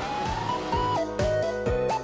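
Electronic outro music: a keyboard melody over a steady kick-drum beat, about two beats a second.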